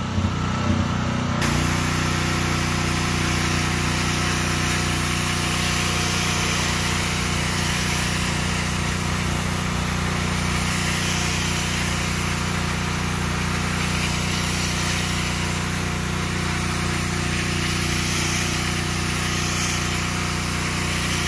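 Pressure washer running steadily: an even engine drone under the hiss of the water jet spraying wet concrete pavers. The steady sound sets in about a second and a half in.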